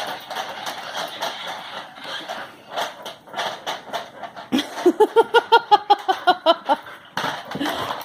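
Toy RC car clattering and knocking about on the floor as a dog plays with it, in many irregular clicks and knocks. About halfway through, a rapid string of about a dozen short pitched vocal sounds, about six a second, lasting a second and a half, louder than the clatter.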